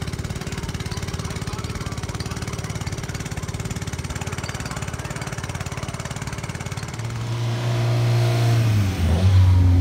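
Car engine running with a fast, even pulse. About seven seconds in it grows louder as the car comes close, and its note drops near the end.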